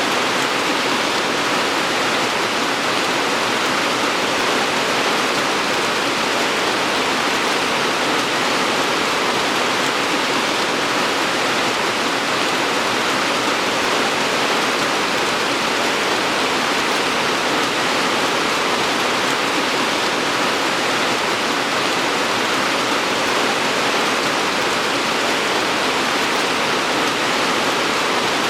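Steady, dense rainfall: an even hiss of rain with no let-up.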